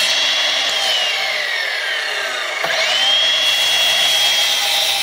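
Workzone 20 V cordless sliding mitre saw cutting through timber. Its steady high motor whine drops in pitch as the blade works through the wood, then climbs quickly back to full speed about two and a half seconds in and holds there.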